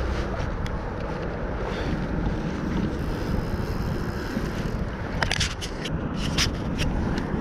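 Wind buffeting the microphone as a steady low rumble, with a few sharp clicks a little after five seconds in.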